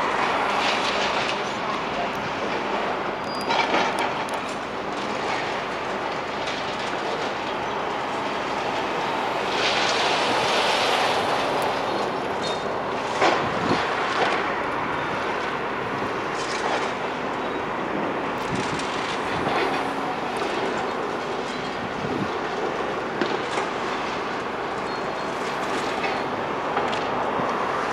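Demolition machinery working on a building: a steady machine noise with irregular clattering and knocking of broken material, swelling louder about ten seconds in.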